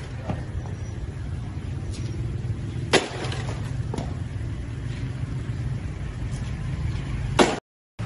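A stone striking a motorcycle lying on pavement: a sharp crack about three seconds in, a lighter knock a second later, and the loudest strike near the end, over a steady low rumble.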